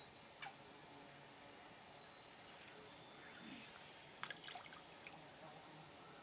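Steady, high-pitched chorus of rainforest insects buzzing without a break, with a few faint clicks about four seconds in.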